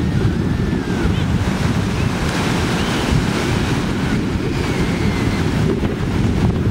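Ocean surf washing onto the beach, with wind buffeting the microphone as a steady low rumble.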